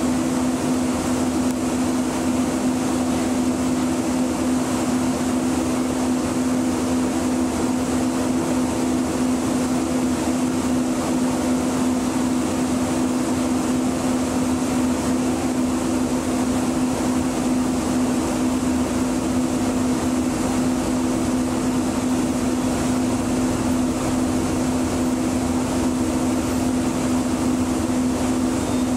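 Steady hum of a stationary Muni Metro light rail vehicle's onboard equipment, heard from the cab, with one strong low hum tone over an even whir.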